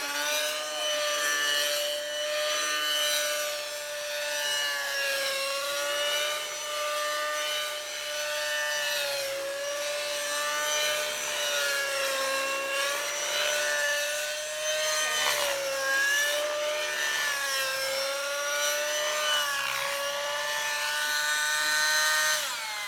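Radio-controlled model helicopter's small engine and rotors, running at a high, buzzing whine. The pitch dips and climbs again every few seconds as the helicopter is flown through manoeuvres.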